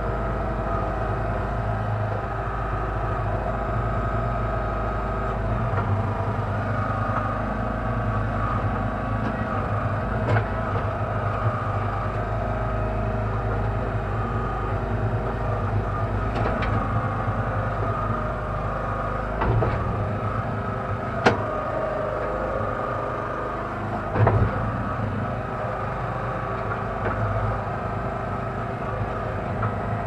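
Kellfri towable mini backhoe's engine running steadily while its hydraulic arm digs. Several short sharp clunks come from the arm and bucket, the loudest a little past two-thirds of the way in.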